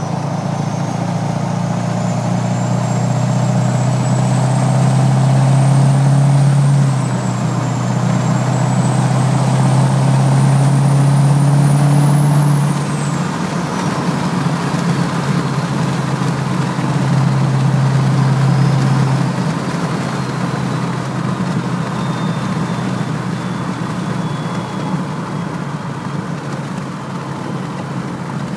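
Duramax diesel truck with a BorgWarner S366 turbocharger under way: the turbo's high whistle climbs as the engine pulls, dips briefly about seven seconds in (likely at a shift), then climbs again to a peak about twelve seconds in. After that the whistle falls away steadily as the throttle eases, over the diesel's low drone.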